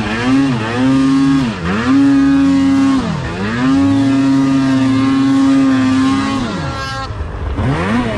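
Arctic Cat M8000 mountain snowmobile's two-stroke engine at high revs under throttle, dipping and picking back up several times in the first three seconds, then holding a steady high note. Near the end it drops off as the throttle is released and gives one short rev.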